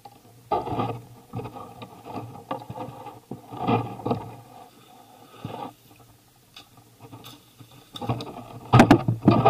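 Mountain bike riding down a rough dirt trail: tyres scraping and the bike rattling in uneven surges, loudest near the end.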